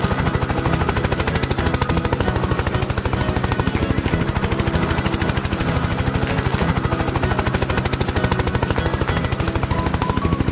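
Helicopter rotor sound effect: blades chopping in a fast, even pulse.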